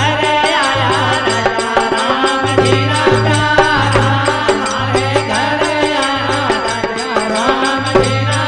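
Instrumental passage of a folk devotional bhajan: a gliding melody over a steady low drone and a quick, even percussion beat.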